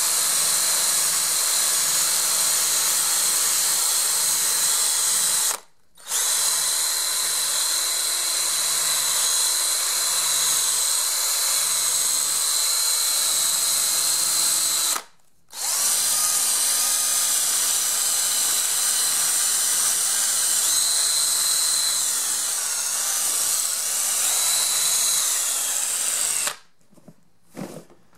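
Cordless drill spinning a sanding disc against foam rubber, shaping a motorcycle seat. The motor runs steadily at high speed, stops briefly twice, about six and fifteen seconds in, and stops near the end.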